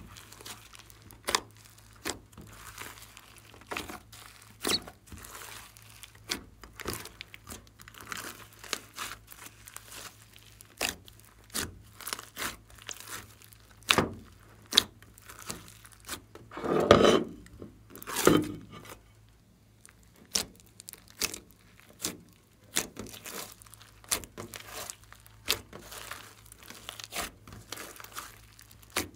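Hands squeezing, poking and folding a large batch of glossy slime mixed with clay, making a string of short, sharp wet pops and clicks as air pockets burst. A louder, longer squelch comes a little past halfway, then another shortly after.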